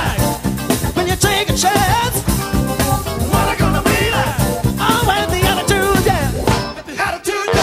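Live funk band with a saxophone horn section, drums and bass guitar, and a singer's voice over the band. The music breaks off briefly just before the end.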